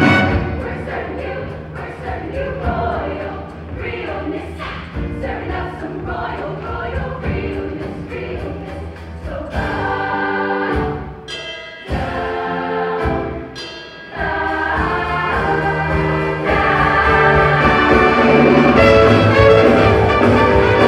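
Show choir singing with instrumental accompaniment. Around the middle the music turns choppy with brief stops, then swells fuller and louder for the last few seconds.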